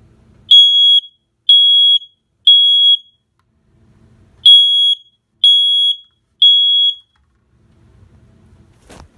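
Home smoke detector sounding its temporal-three (code 3) alarm under test: two groups of three loud, steady, high-pitched beeps, each about half a second long and a second apart, with a longer pause between the groups. Faint handling noise and a click follow near the end.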